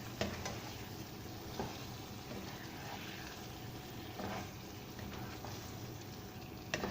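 Chicken pieces frying and sizzling in oil and spice masala in a wok as they are stirred, with a few short knocks of the spoon against the wok.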